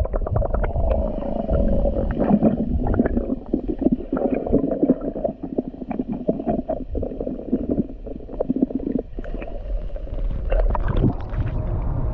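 Sea water heard through a submerged microphone: a muffled, gurgling underwater rumble with many small clicks and crackles as the bag and hand move about below the surface.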